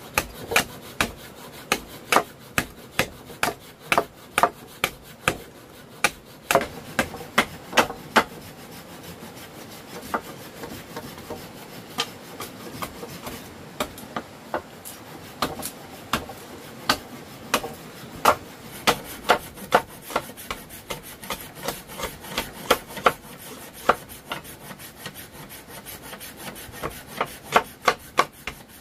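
Hand tool working wood: a long run of sharp knocks, one to three a second, with scraping and rasping between strokes. The strokes pause for a few seconds around the middle, then pick up again faster.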